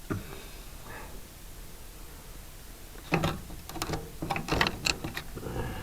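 A few clicks, then a cluster of knocks and rattles from about three seconds in, as hands work loose the tractor's engine heater and its lines.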